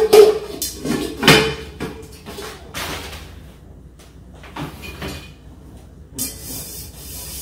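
Glass pot lid knocking and clinking against a small nonstick saucepan as the lid is lifted off, the loudest knock right at the start and another about a second later, followed by softer handling knocks as the pot is turned over and a brief rustle near the end.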